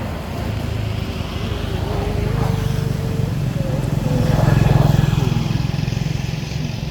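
A motor vehicle's engine passing by, its low hum growing louder to a peak about five seconds in and then fading.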